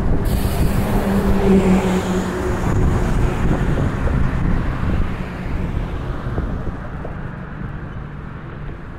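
A city bus drives past close by with its engine humming, then a car passes; the traffic noise fades over the last few seconds.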